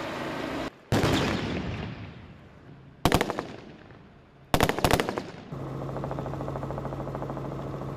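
Gunfire in a staged hostage-rescue assault: a loud bang about a second in that rings away, then two short bursts of rapid automatic shots around three and four and a half seconds in. A steady low hum is under it at the start and again near the end.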